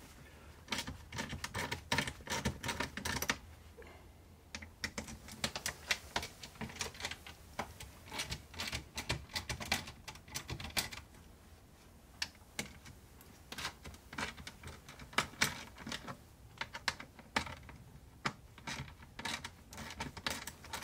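Hand ratchet with an 8 mm socket clicking in quick runs, broken by short pauses, as the screws holding the fan motor to the plastic fan shroud are backed out.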